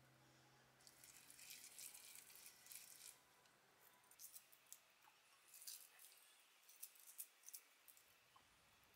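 Near silence with faint, scattered clicks and rustles, as the last of the background music fades out at the start.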